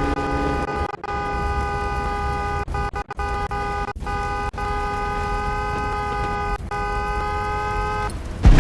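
Korean school bell chime played over a loudspeaker: a sustained electronic tone of several held notes, broken by a few short dropouts. It stops shortly before the end and a brief loud rumble follows.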